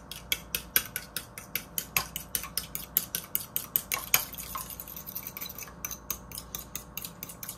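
A metal fork beating a raw egg in a small bowl, the tines clicking against the bowl's side in quick, even strokes, about five a second.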